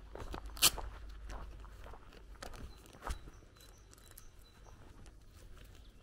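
Footsteps on a gravel dirt lane. A sharp, loud click comes just over half a second in, the loudest sound, and a duller knock about three seconds in, over a low steady rumble.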